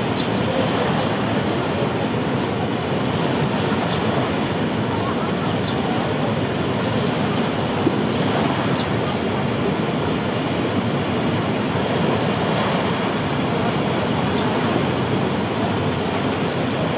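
Waterfall and river water rushing in a steady, unbroken roar, with a few faint short high chirps scattered through it.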